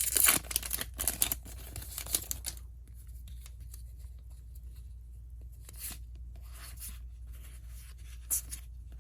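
A Magic: The Gathering booster pack's foil wrapper being torn open, crinkling for about two and a half seconds. It is followed by a few short, soft rustles of handling.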